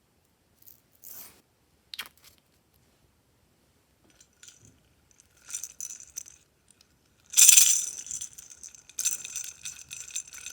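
Small hard pieces clinking and rattling against a container, with a few short ticks at first, then a denser, ringing rattle that is loudest about seven seconds in.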